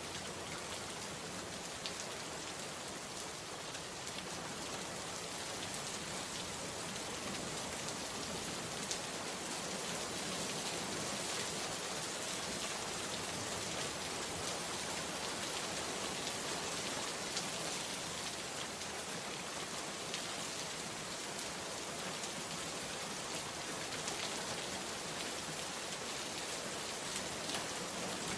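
Steady rain falling: an even, dense hiss with scattered single drops ticking through it.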